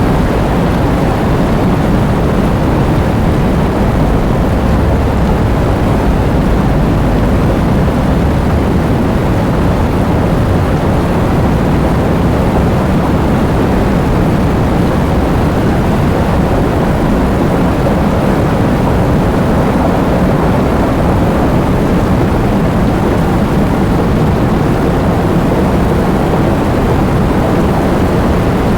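Heavy rain and wind: a steady, dense rush of noise with a deep low rumble that does not let up.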